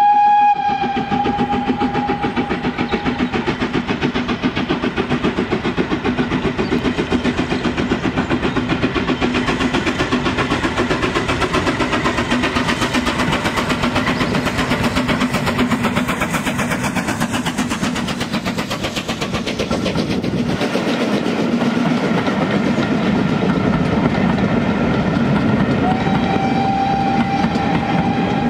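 BR Standard Class 4 4-6-0 steam locomotive working a loaded train past at speed, its exhaust beating rapidly over the clatter of the coaches on the rails. A steam whistle sounds at the start for about three seconds, and again from a couple of seconds before the end.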